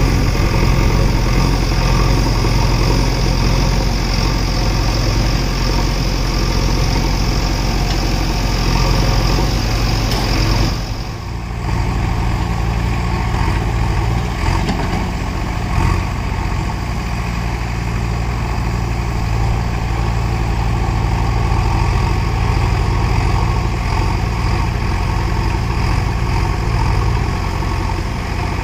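Diesel engine of a JCB 3DX backhoe loader running steadily as it digs and loads soil. The sound drops briefly about eleven seconds in.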